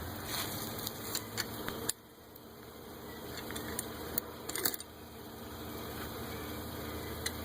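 Scattered light metallic clicks and taps of hand tools and loose parts during disassembly of a VW Jetta turbocharger, over a steady mechanical hum that drops sharply about two seconds in and slowly returns.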